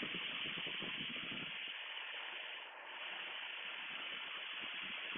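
Steady in-flight cockpit noise of a Piper Comanche 250: the engine and the airflow blend into an even, thin hiss with no distinct engine tone.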